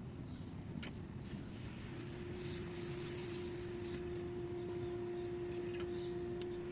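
Valve core removal tool on a pressurized Schrader service port of a marine self-contained A/C unit: a few metal clicks and a hiss of refrigerant a little over a second in that lasts about two and a half seconds. A steady hum comes in about two seconds in.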